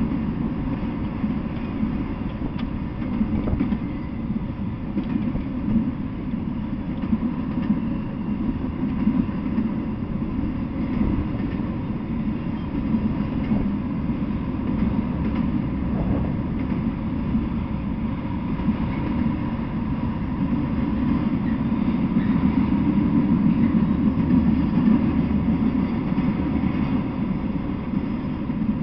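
Freight train of autorack cars rolling past at steady speed: a continuous rumble of steel wheels on rail with a scattering of small clattering knocks, growing a little louder near the end. Picked up by a trail camera's small microphone, so it sounds dull with no high end.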